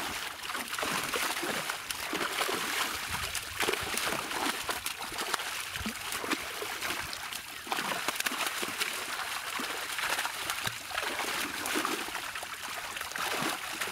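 Water splashing and sloshing continually as a netful of large carp and rohu thrash in shallow water, with many irregular sharp splashes.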